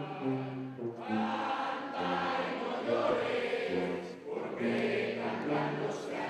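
Live concert music from an ensemble: sustained melodic notes over a bass line that moves from note to note every half second or so.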